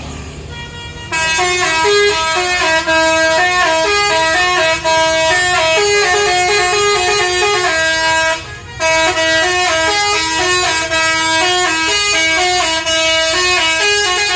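Basuri telolet musical horn on a tour bus playing a tune of stepped horn notes. It starts about a second in, breaks off briefly past the middle, then plays on.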